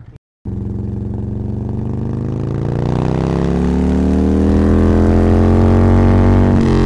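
Motorcycle engine heard from the rider's seat, starting after a brief dropout, rising in pitch as the bike accelerates over the first couple of seconds, then running steadily at cruising speed.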